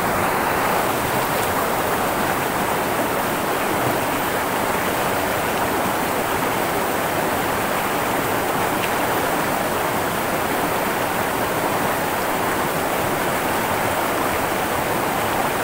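Shallow, rocky river current running steadily: a constant, unbroken rush of flowing water.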